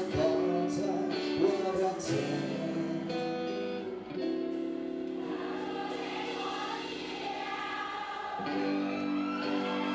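Live pop song played through a PA: backing music with guitar and singing.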